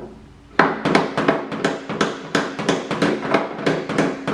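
A hammer striking a seized tractor hood hinge pin in a quick run of metal-on-metal blows, about four a second, each one ringing. The pin is stuck tight despite penetrating oil.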